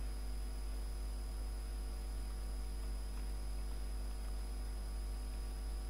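Steady low electrical mains hum with a constant hiss and a faint high whine, with a few faint clicks around the middle.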